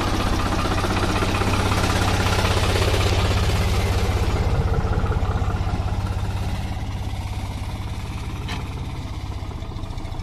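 Farm tractor's diesel engine running steadily with a fast, even knocking beat, getting quieter from about halfway through as the tractor pulls away.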